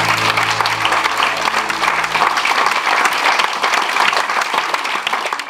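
Theatre audience applauding, dense and steady, as the held closing chord of the song's accompaniment dies away in the first couple of seconds. The clapping starts to fade right at the end.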